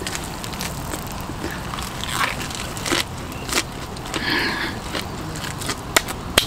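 Close-up chewing and crunching of a lettuce wrap with grilled marinated pork galbi, with scattered crisp clicks from the chewing. A steady hiss runs underneath.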